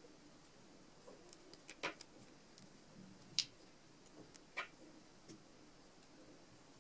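Faint, scattered small ticks and clicks of thin wire being wound around the stem of a beaded rose, binding the sepals in place; about six separate clicks, the sharpest about halfway through.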